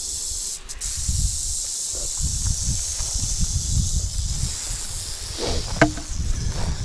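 Rattlesnake rattling, a steady high buzz held without a break, the warning of an agitated snake. A low rumble sits underneath it on the microphone.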